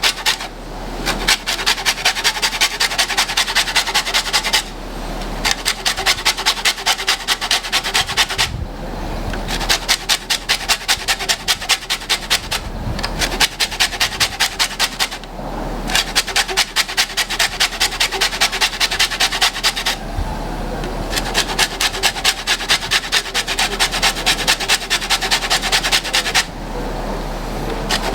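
A lemon being rubbed against a grater to zest it: quick rasping strokes, several a second, in runs broken by short pauses.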